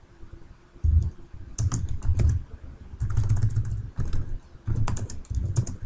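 Typing on a computer keyboard: a run of irregular key clacks with dull thumps under them, starting about a second in.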